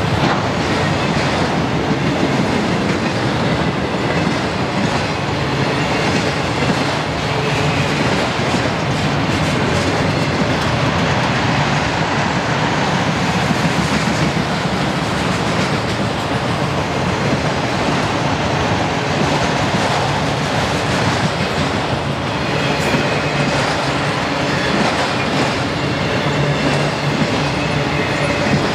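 Freight train of autorack cars rolling past: a steady rumble and clatter of steel wheels on the rails.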